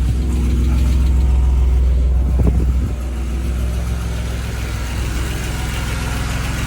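1989 Mercedes-Benz 190E engine idling steadily, freshly started after sitting; the owner finds it doesn't sound too bad for 353,000 miles. The level dips slightly about three seconds in and then holds steady.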